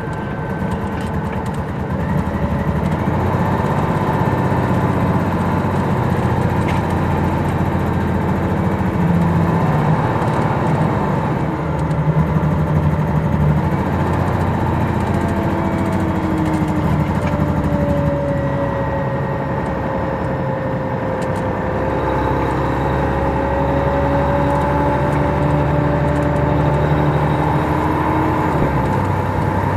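Detroit Diesel Series 60 engine of a 2002 MCI D4000 coach with Allison automatic transmission, heard from inside the cabin near the back as the bus drives. It runs steadily with its pitch slowly rising and falling, and gets louder about two seconds in.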